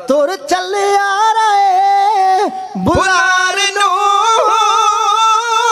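Unaccompanied Punjabi kavishri singing by male voices: a long, wavering held note that slides down and breaks off about two and a half seconds in, then another long held note.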